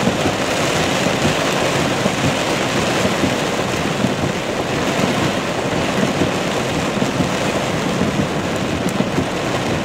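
Heavy rain falling on a car's roof and windshield, heard from inside the car: a steady, dense hiss that does not let up.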